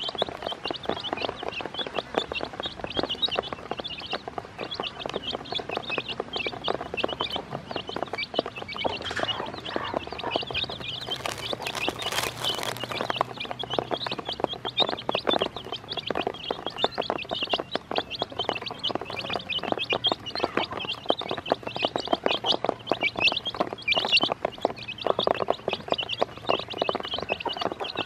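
A brood of young chicks peeping continuously, many high cheeps overlapping, with rapid tapping of their beaks pecking feed off a plastic basin.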